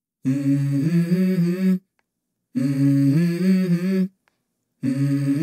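Hummed vocal melody from a song's intro: three short phrases of stepping notes, each about a second and a half long, separated by brief complete silences.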